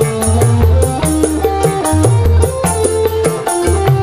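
Live rock-dangdut band playing an instrumental passage: dangdut hand drums keep a steady beat over bass guitar, electric guitar and a drum kit's cymbals.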